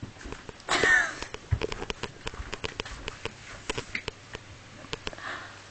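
A brief high-pitched voice, like a squeal, about a second in, followed by scattered irregular clicks and taps.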